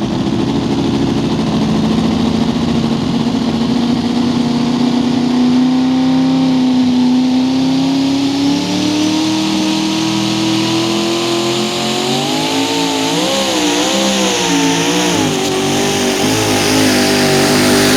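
A pulling tractor or truck's engine at full throttle down the track, its pitch climbing slowly and steadily, then wavering rapidly up and down near the end as the revs surge and drop.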